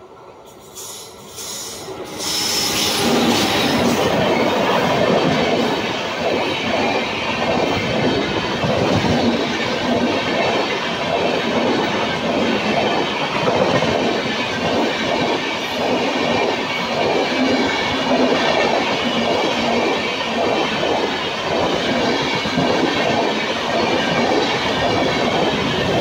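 Rajdhani Express passenger train, hauled by an electric locomotive, passing close by at speed: the noise rises sharply about two seconds in as the locomotive reaches the camera, then holds as the steady running noise and rhythmic clickety-clack of the coaches' wheels over the rail joints.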